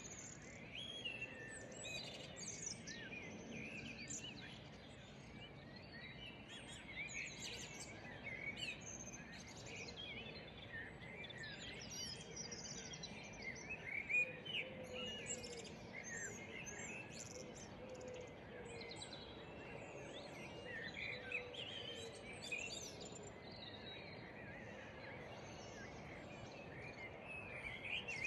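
Small songbirds chirping and singing, many short high calls overlapping throughout, over a faint steady outdoor background hum.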